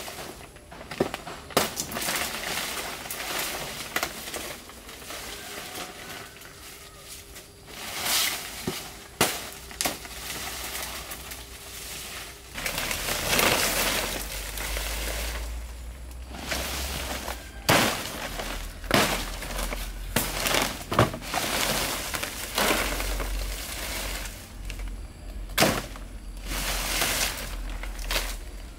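Large fan palm leaves rustling and swishing as they are cut and gathered into a bundle, with irregular sharp snaps and chops as the leaf stalks are cut through.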